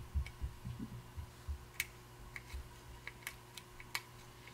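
Faint, scattered light clicks and ticks of a small flathead screwdriver prying at the crimped-over metal bezel of an old tractor fuel gauge, with soft handling bumps. A faint steady hum sits underneath.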